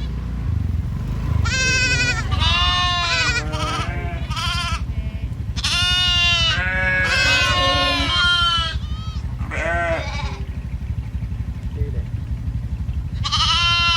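Several sheep bleating, one call overlapping the next with a wavering pitch, then a pause of a few seconds and another bleat near the end, over a steady low rumble.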